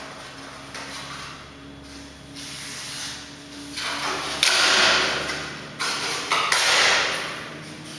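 Laminate board scraping and rubbing as it is handled and fitted by hand. Quieter rubbing at first, then two long scraping noises in the second half, the louder one about halfway through.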